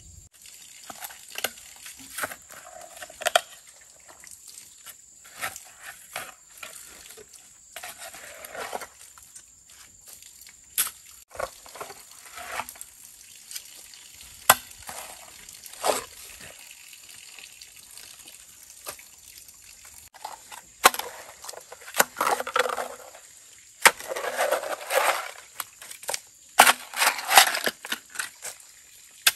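Hoe chopping into and scraping through wet, muddy soil: irregular strikes and drags, busier near the end, with wet squelching as mud is pulled. A steady high drone runs underneath.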